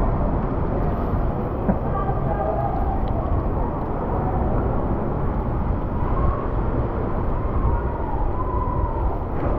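Steady wind rumble over the microphone, with road noise from a bicycle riding on wet pavement.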